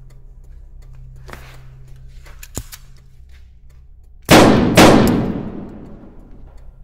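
Two pistol shots about half a second apart, each fading away slowly in a long echo. A single sharp click comes a couple of seconds before them.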